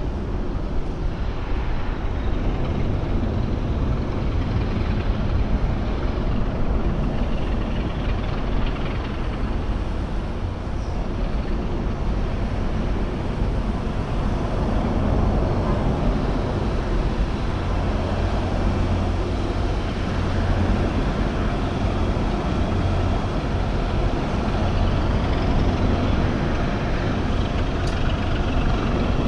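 Steady industrial harbour-city ambience: a continuous rumble of heavy road traffic and engines with a strong low hum.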